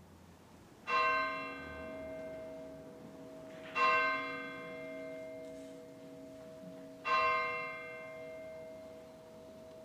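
Sanctus bell struck three times about three seconds apart, each ring lingering and fading slowly, rung at the elevation of the chalice after the words of institution.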